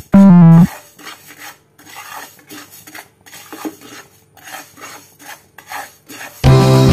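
Slotted plastic spatula scraping and stirring fenugreek seeds around a nonstick frying pan as they dry-roast: a run of soft, uneven scrapes with the seeds rattling. Guitar music plays briefly at the start and comes back near the end.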